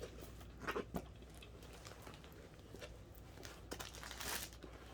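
Rolled diamond painting canvas and its plastic packaging being handled: scattered soft crinkles and taps, with a longer rustle about four seconds in.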